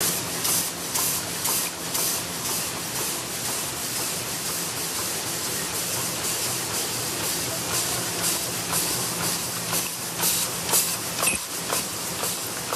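Many paper cup and bowl forming machines running together on a factory floor: a steady mechanical hum with short, sharp hisses repeating about twice a second.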